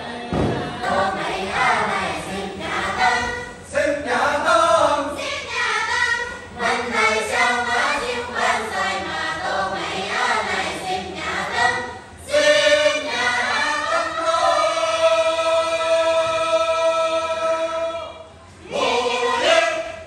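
A group of Dong women singing together in chorus. The song moves through short sung phrases, then settles into one long held note in the second half, breaks off briefly and starts again near the end.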